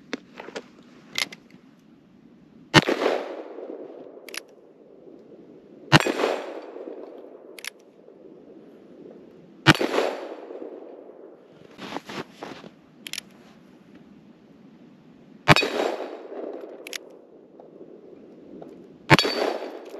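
Five .44 Magnum shots from a 1963 Ruger Super Blackhawk single-action revolver, fired one at a time three to six seconds apart, each shot followed by a short rolling echo. Smaller sharp clicks come between the shots as the hammer is cocked for each one.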